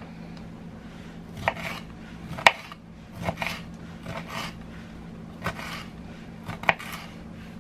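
Kitchen food-prep handling: about four sharp knocks and clinks of utensils on the counter or board, irregularly spaced, with short scraping or rustling sounds between them, over a steady low hum.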